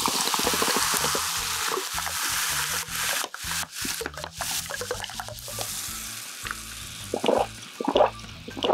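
Coca-Cola poured from a can into a glass mug, fizzing and crackling loudly as it fills, the fizz dying down over several seconds. Near the end come a few gulps as the cola is drunk.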